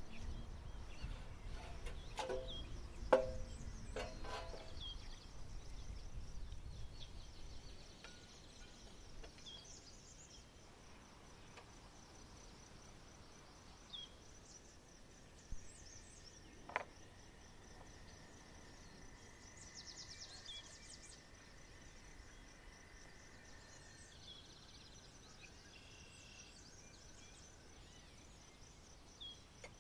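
Outdoor ambience: steady high-pitched insect chirring, with occasional short bird chirps. There are a few knocks and clinks in the first few seconds and a single sharp click later on.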